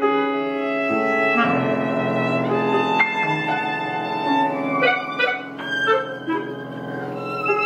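A clarinet, viola and piano trio playing chamber music: long held notes and chords, with sharper accents about three and five seconds in.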